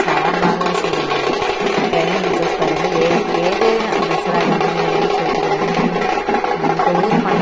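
Loud street-procession music: a wavering melody line over a band of dappu frame drums, with crowd noise running underneath.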